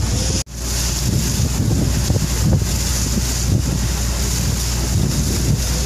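Steady engine drone of a river taxi motor boat under way, with wind buffeting the microphone. The sound drops out briefly about half a second in.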